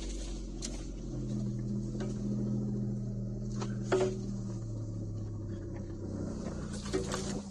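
2008 Mitsubishi Endeavor's 3.8-litre V6 heard from inside the cabin, running steadily at low speed on a dirt trail, with a few knocks and rattles over bumps, the loudest about four seconds in and another near the end.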